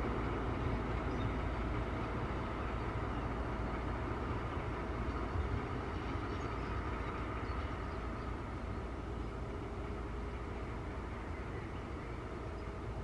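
Ex-DR V100 diesel-hydraulic locomotive's engine running steadily as the locomotive moves slowly away, its sound gradually fading.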